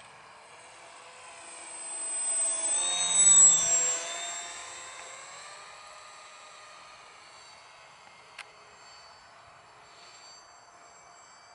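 Electric-powered depron foam RC parkjet making a fast low fly-by: its motor whine swells, drops in pitch as it passes about three and a half seconds in, then fades to a faint distant drone. A single sharp click comes a few seconds later.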